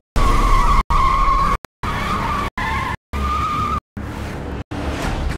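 A car's tyres squealing as it is driven hard through turns, a wavering high squeal over a low engine rumble, broken by several brief silent gaps.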